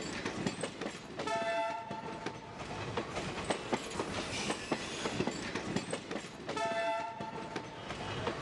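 Diesel train passing on the tracks: wheels clicking and clattering over the rails, with the train horn sounding twice, a blast of under a second about a second in and a shorter one near the end.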